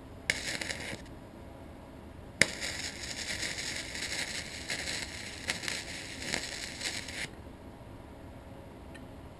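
Flux-core MIG welding arc from a Mig-250 Pro welder running 0.030-inch flux-core wire at about 85 amps, tack-welding a small steel piece onto a galvanized round tube. A brief arc of under a second, then a sharp crack as the arc strikes again and about five seconds of steady crackling before it stops.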